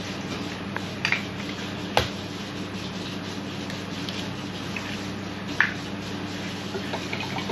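Raw eggs being cracked open into a glass bowl: a few short sharp taps and shell cracks, the loudest about two seconds in, over a steady low hum.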